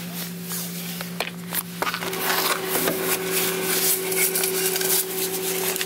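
Vending machine humming steadily. About two seconds in, its vend motor starts running with a higher steady whir and rapid rattling clicks as it dispenses a purchased item.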